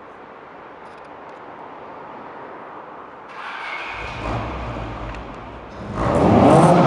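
Honda Civic VTi engine and exhaust, faint at first and growing louder from about halfway. Near the end it rises sharply to a loud, steady engine note.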